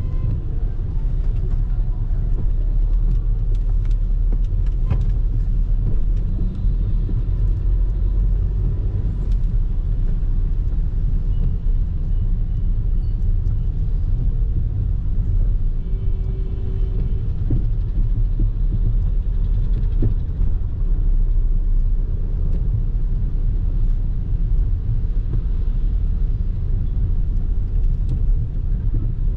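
Steady low rumble of a vehicle driving along a road.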